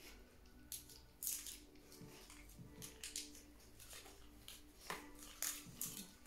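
Foil wrapper on a small chocolate crinkling as it is unwrapped by hand, in short irregular rustles.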